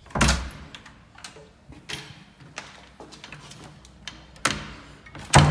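Irregular knocks and clicks from a wooden door being handled and a camera being jostled, with a heavy thump just after the start, another about four and a half seconds in, and the loudest near the end.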